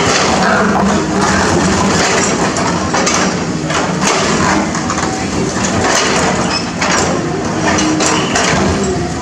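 Cat 320D excavator's diesel engine running under load while it breaks up concrete, with irregular cracks and knocks of concrete breaking and scraping.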